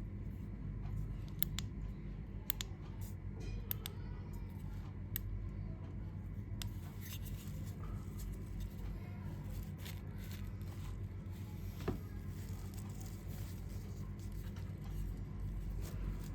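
Scattered small sharp clicks and light rustling, as of handling a flashlight and its packaging, over a steady low hum.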